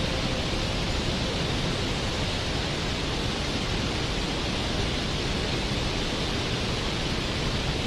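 Steady rushing of a forest river, an even hiss of flowing water with no distinct splashes or breaks.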